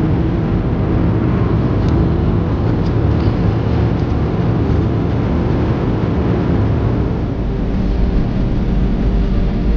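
Steady rumble and rush of an airliner's cabin: engine and airflow noise heard from inside the aircraft.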